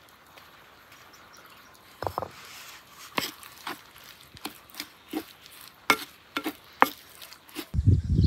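Wooden spoon stirring chopped tomatoes, herbs and spices in an unglazed clay dish, with sharp knocks of the spoon against the clay about once every half second to second from about two seconds in. A low rumble sets in near the end.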